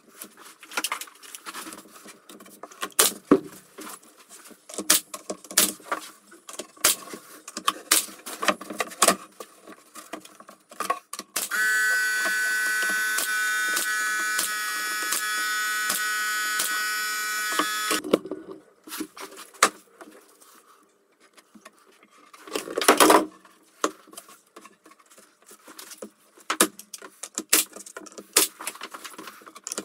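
Woodworking sounds: plywood strips being handled and fitted onto a cabinet top, with many sharp knocks and clicks, and a pneumatic brad nailer in use. Near the middle a steady machine sound with a high whine runs for about six seconds, starting and stopping abruptly. A single loud burst comes about 23 seconds in.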